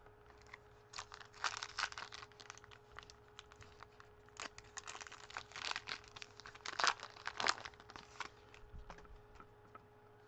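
A trading-card pack wrapper being torn open and crinkled in the hands, in two bursts of crackling, the second longer and louder.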